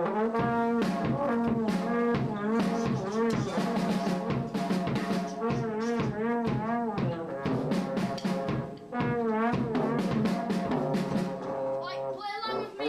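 Music on a brass instrument, a melody of held and wavering notes with drum hits under it.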